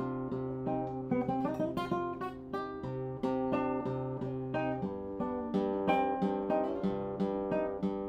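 A 1962 José de la Mora guitar being played: a continuous run of plucked notes over held bass notes, rich in overtones, with the bass moving to a new note about five seconds in.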